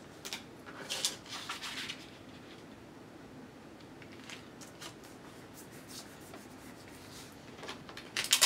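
Clear tape and plastic drawing film rustling and crinkling as tape is pressed down over metal registration pins, with a few soft taps and a sharp click near the end.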